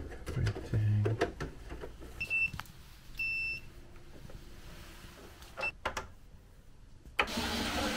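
Short high electronic beeps from a clamp meter: a quick one a couple of seconds in, a longer one a second later, and a very brief third later on. Sharp clicks of hands working on wiring and breakers in an electrical panel come in between, with a brief low hum about a second in.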